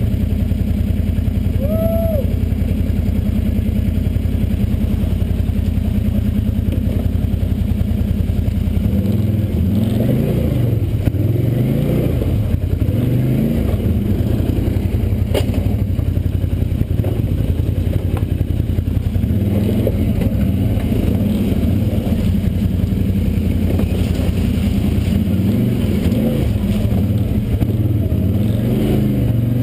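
ATV engine idling steadily, then from about nine seconds in revving up and down under throttle as the quad climbs over boulders.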